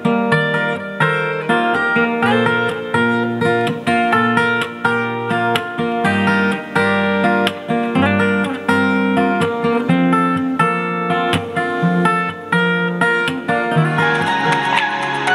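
Acoustic guitar music, plucked and strummed, playing through a Robot RB520 Bluetooth speaker during a sound test. Near the end it changes to a different, electronic track.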